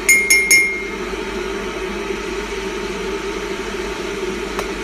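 Microwave oven beeping three times in quick succession, short high electronic beeps, over a steady low hum, with a faint click near the end.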